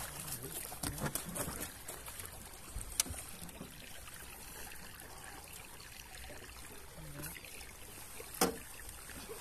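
Water trickling and splashing softly as a netted fish is brought over the side of a small aluminium boat, with a few light clicks and one louder knock near the end.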